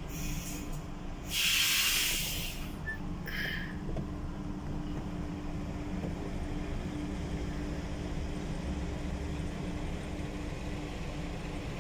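Heavy diesel truck engine running steadily at low revs while manoeuvring. A loud hiss of compressed air from the truck's air brakes comes about a second in and lasts about a second, with a shorter, fainter hiss a couple of seconds later.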